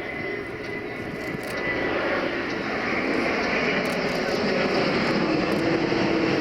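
Turbofan engines of an Airbus A350 XWB airliner flying by, a rushing jet noise that grows louder over the first couple of seconds and then holds steady.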